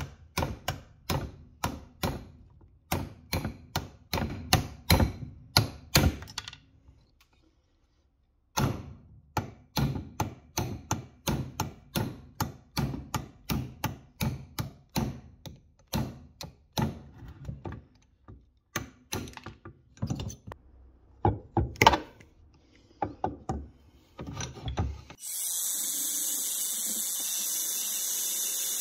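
A steel hand tool clicking and scraping against the teeth of cast-iron bevel gears, three or four sharp clicks a second, with a pause of about two seconds some six seconds in. About 25 seconds in a narrow belt sander starts up and runs steadily against the gears.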